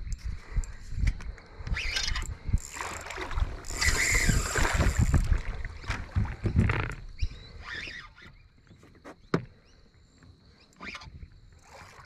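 A hooked fish thrashing and splashing at the surface beside a kayak while the angler fights it on the rod. It goes quieter after about seven seconds, leaving a few sharp clicks of gear handling as the landing net comes out.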